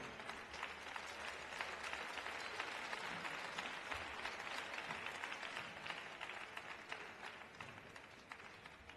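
Audience applauding, dense scattered clapping that fades away over the last few seconds.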